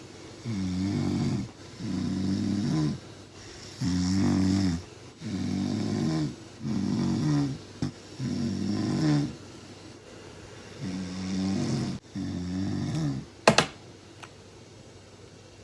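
Loud, pitched snoring: about ten snores, each about a second long, coming in quick succession with a short pause about two thirds of the way through. A sharp click sounds near the end.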